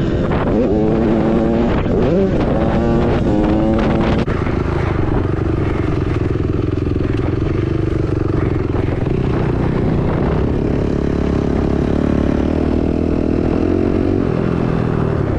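Dirt bike engine revving up and down quickly for the first four seconds or so, then running at a fairly steady pitch, rising briefly again near the end.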